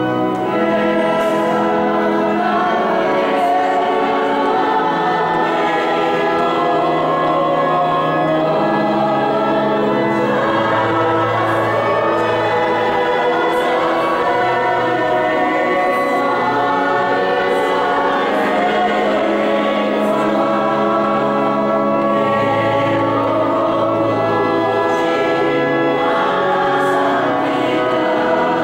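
Church choir singing a slow hymn in long held notes, with organ accompaniment.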